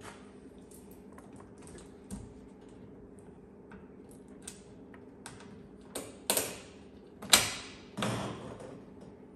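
Hand-fitting of a UTV enclosure panel's hardware to the roll cage: small clicks and taps of the fastener and clamp being started finger tight, then several louder knocks and scrapes of the panel against the cage about two-thirds of the way through.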